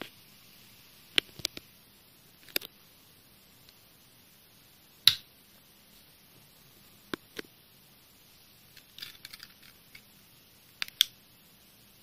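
Scattered sharp clicks and taps over faint hiss: single clicks about one, two and a half, five and seven seconds in (the one at five the loudest), a quick flurry of small clicks around nine seconds and a close pair near eleven seconds.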